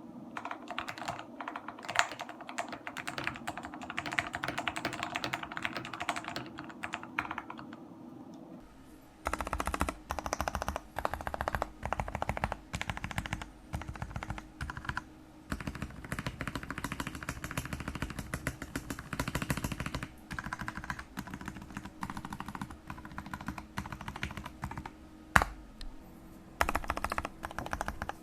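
Typing on a mechanical keyboard with Jailhouse Blue switches. For about the first eight seconds it is a fast, even run of key presses on switches whose tactile bump has been sanded off the stem, making them linear. From about nine seconds in come louder, more spaced presses with a deeper thud on the modifier keys, still on the unmodified tactile switches.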